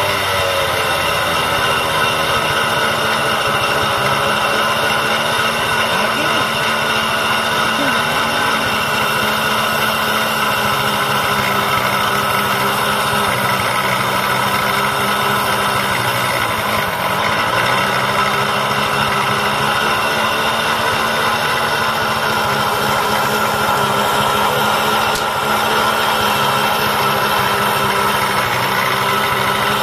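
A small motorcycle engine runs steadily, driving a belt-powered grinding wheel rigged on the bike, while scissors are held against the wheel to sharpen them. The engine's pitch sags briefly just after the start and again about halfway through.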